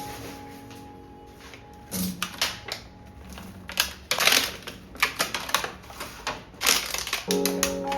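Kitchen utensils in cooking work: a quick run of sharp knocks and clicks with a couple of longer scrapes. Soft background music comes back in near the end.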